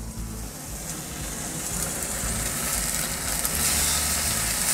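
Thin beef steaks sizzling in a very hot frying pan of olive oil over embers. The sizzle grows louder about two seconds in, over a steady low rumble.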